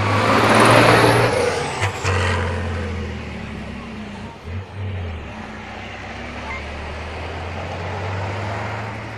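Diesel engine of an off-road trial truck working hard under heavy throttle as it drives the dirt course, loudest in the first couple of seconds. The engine note dips briefly twice and then picks up again.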